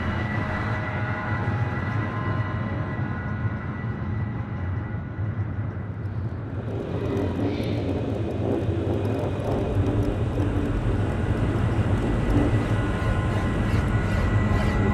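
Experimental electronic soundtrack drone: a dense, continuous rumbling texture with a low hum and a steady high tone, like a passing aircraft. About seven seconds in it thickens and grows louder.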